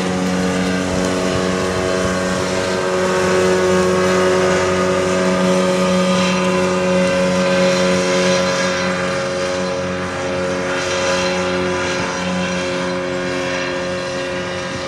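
Speedboat's outboard motor running steadily at speed, a continuous engine drone. Its pitch shifts slightly partway through, and it grows a little quieter toward the end.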